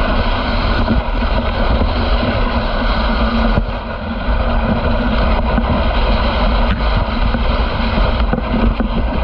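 Dog sled running over a packed snow trail: a loud, steady rushing and scraping noise from the runners on the snow, with a few light knocks from the sled.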